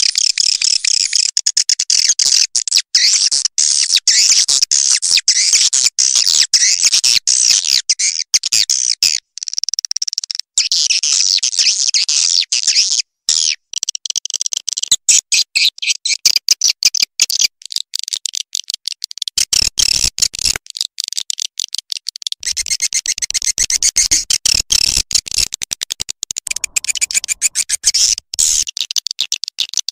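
Edible-nest swiftlet calls from a swiftlet lure recording: dense, rapid, high-pitched twittering and chirping, choppy with many brief breaks.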